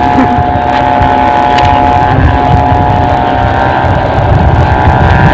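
Kite hummer (sendaren) on a flying kite, sounding a steady snoring drone made of several close pitches held without a break. Wind rumbles on the microphone underneath.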